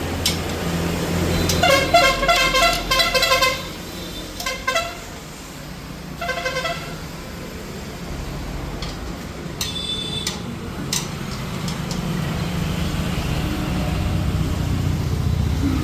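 Street traffic: a vehicle horn honking in a rapid stutter of short toots about two seconds in, with two shorter honks a few seconds later, over the low running of vehicle engines that grows louder toward the end.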